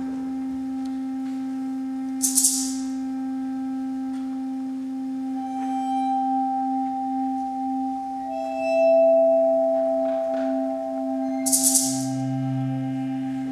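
Wind ensemble playing a quiet, slow passage: a low note is held throughout while higher sustained notes enter above it. Short percussion rattles come about two seconds in and again near the end, where a deep low note also joins.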